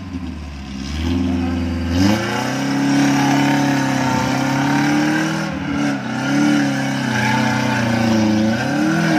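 Suzuki Jimny's engine under heavy load in deep mud, running steadily at first, then revving up about two seconds in and staying high, dipping and surging several times as the four-wheel drive struggles to climb.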